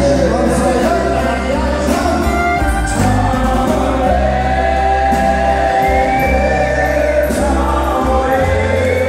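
Live country-western band playing: fiddle and acoustic guitars with men singing into microphones, over a steady bass.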